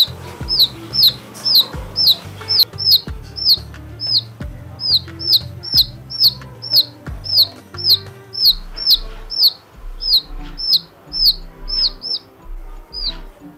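A baby chick peeping over and over: short, high, downward-falling cheeps about two a second, with background music underneath.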